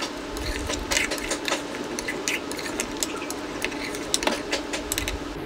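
A spatula scraping and knocking irregularly against an aluminium cooking pot as chunks of mutton are stirred and turned, over a steady hum. The meat is being stir-fried over a high flame to cook off its remaining water.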